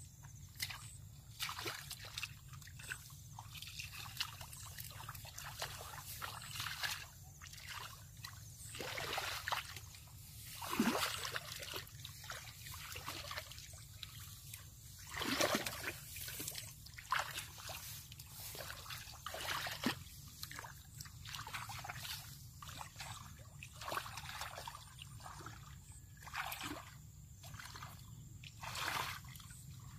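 Water splashing and sloshing in irregular bursts, with a few louder splashes around the middle and one near the end, over a steady low hum.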